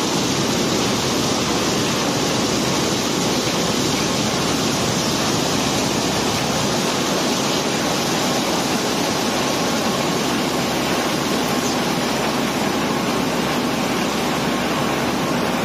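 Steady rushing noise of cobblestone and gravel pouring down the barge hold's chute during unloading, with a faint machine hum underneath.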